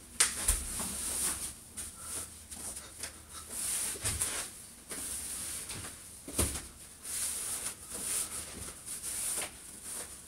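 Clothing rustling as a pair of black pants is pulled up over the legs, with a few thumps from the feet and body moving on the floor.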